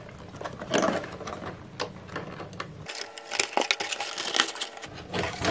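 Rustling, scraping and many small irregular clicks and knocks of a cardboard box and its packaging being handled as a pack of three PC case fans is slid out.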